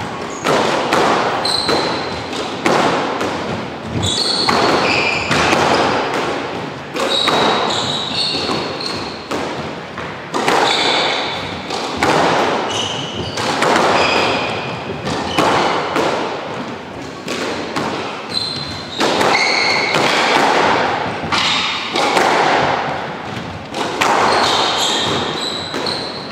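Squash rally: the rubber squash ball cracked by rackets and thudding off the court walls about once every second and a half, each hit echoing in the enclosed court, with short high squeaks from shoes on the wooden floor between shots.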